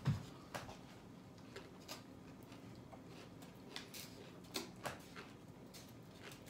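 Quiet eating of thick sushi rolls (ehomaki): scattered faint clicks and small mouth and handling noises from biting and chewing, with a soft thump just at the start.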